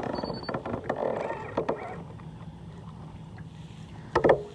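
A trolling motor gives one short high electronic beep as it is powered back on, among light clicks and knocks of handling. A faint steady low hum comes in about halfway, and a sharper knock sounds near the end.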